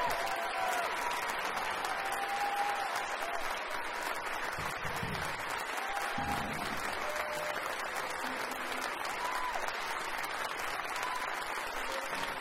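A large crowd applauding steadily, with a few short calls from voices rising above the clapping.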